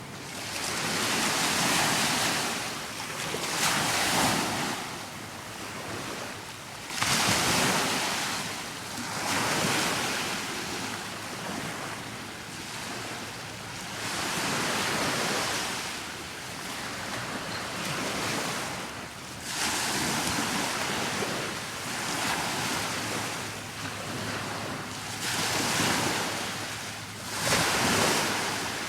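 Sea waves washing in, the rush swelling and fading every two to three seconds, with wind buffeting the microphone.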